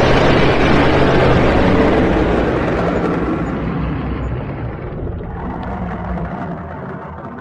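Dragon sound effect: a loud, rough rushing rumble over a low drone that slowly fades away over several seconds.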